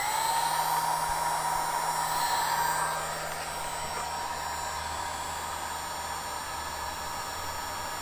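Electric heat gun running on its low setting: a steady rush of blown air with a fan whine, heating a solder sleeve to shrink it. It gets a little quieter about three seconds in.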